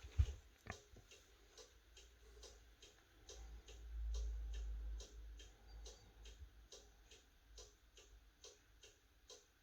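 Steady, even ticking, about three ticks a second. A low thump comes near the start, and a low rumble, the loudest part, comes about three to five seconds in.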